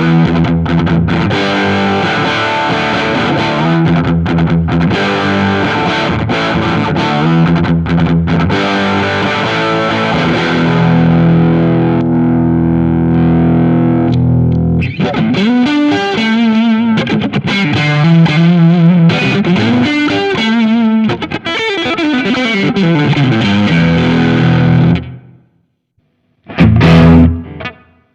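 Fender Stratocaster electric guitar played with distortion through a Nux MG300 modeler's amp simulation, with chords and riffs ringing out. The playing stops about 25 seconds in, then one short loud phrase sounds near the end.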